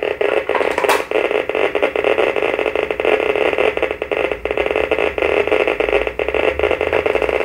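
Berthold LB 1210 B radiation ratemeter's loudspeaker clicking rapidly and irregularly, one click for each particle its Geiger-Müller tube detects, merging into a dense crackle. A single louder knock about a second in.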